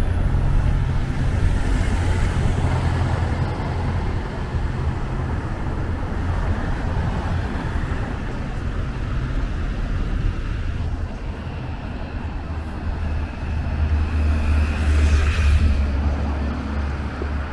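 City street traffic, with a red double-decker bus's engine running close by at the start. A second low vehicle rumble swells about fourteen seconds in.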